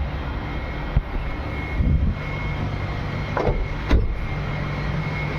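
Steady low machine rumble with a faint steady whine above it, broken by a few knocks and handling bumps, the loudest about four seconds in.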